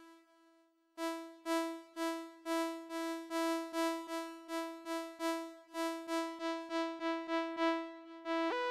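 A bright synthesizer voice on a Yamaha PSR-SX900 arranger keyboard repeats one note about three times a second. Its top overtones dull as the filter cutoff is turned down. Near the end a quick run of changing notes begins.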